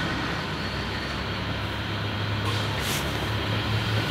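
Diesel railcar train pulling away, its engines giving a steady low drone. A short hiss comes about three seconds in.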